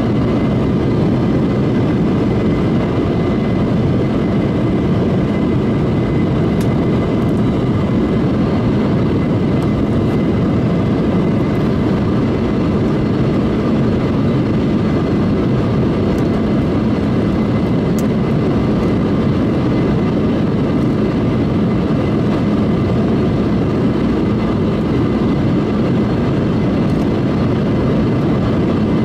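Steady jet airliner cabin noise in flight aboard an Embraer E175: engine and airflow noise with no change in level, and a faint high steady tone above it.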